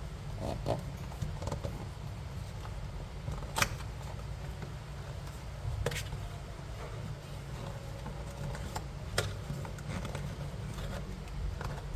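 Hands handling a smartwatch box and its packaging: scattered sharp clicks and taps, the loudest about three and a half seconds in, with others near six and nine seconds, over a steady low hum.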